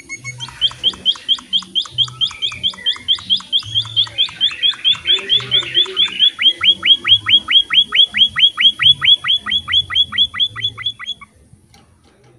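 A small finch (emprit) singing a long run of sharp, down-slurred chirps at about four or five a second. The chirps swell in loudness and then stop abruptly about eleven seconds in.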